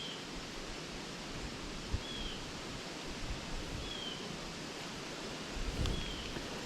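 Steady rush of flowing creek water, with a small bird giving a short, slightly falling chirp four times, about every two seconds.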